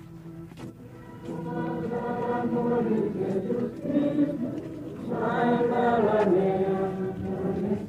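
A crowd of people singing a slow chant together in unison, starting quietly and growing fuller, loudest from about five seconds in.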